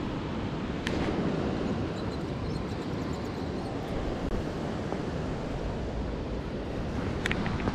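Steady rush of river water mixed with wind buffeting the microphone. A light click sounds about a second in and another near the end.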